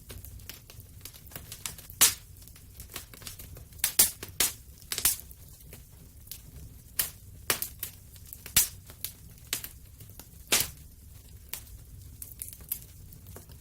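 Wood fire in a fireplace crackling, with irregular snaps and pops over a low steady rumble; a few sharper pops stand out, about two, four, five, eight and a half and ten and a half seconds in.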